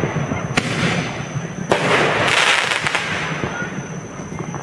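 Fireworks going off: two sharp bangs about a second apart, then a second or so of dense crackling that fades.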